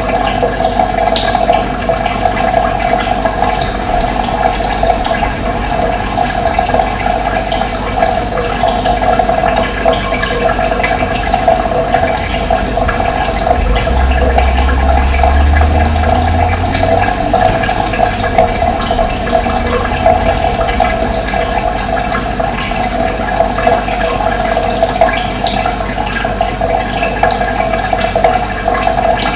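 Running water flowing steadily. A low rumble swells for a few seconds around the middle.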